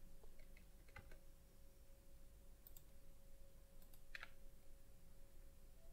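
Near silence with a few faint, scattered computer keyboard clicks over a faint steady hum.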